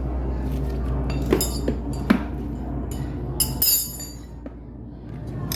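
Metal tools clinking against motorcycle parts: a few sharp ringing clinks, with a cluster of them a little past halfway. A steady low hum runs underneath and stops suddenly a little past halfway.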